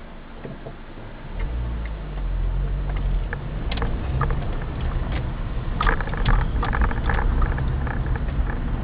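Car heard from inside the cabin pulling away from a junction: the engine's low rumble rises about a second and a half in and carries on as the car drives off, with scattered clicks and rattles over the road.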